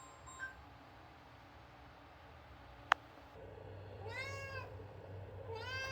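Domestic cat meowing twice, each meow rising then falling in pitch, the first about four seconds in and the second near the end. A single sharp click comes a little before the first meow.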